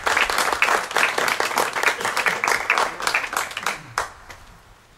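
Audience applauding: many hands clapping together, thinning out and stopping about four seconds in, with one last lone clap.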